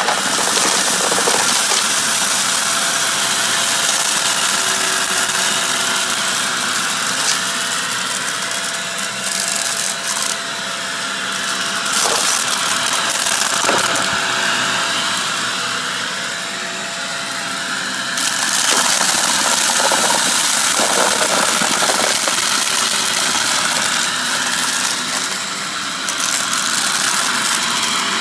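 Shark vacuum cleaner running steadily, its whine swelling and easing every few seconds as it works, with scattered crackles of crunchy debris being sucked up.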